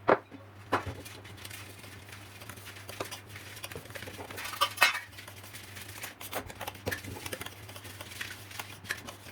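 Kitchen utensils clinking and knocking against a plate while it is greased with ghee: scattered sharp clicks and taps, the loudest near the start and about halfway through, over a steady low hum.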